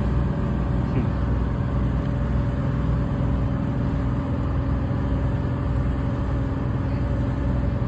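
Tour boat's engine running steadily under way, a low drone with a faint steady hum, mixed with wash and wind noise.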